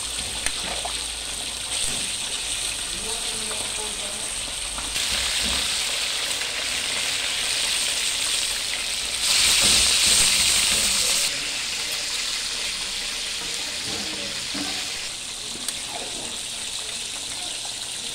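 Food sizzling and frying in metal pans, with a metal spatula stirring a thick coconut-milk stew in a wok. About halfway through, fish frying in hot oil sizzles loudest for about two seconds.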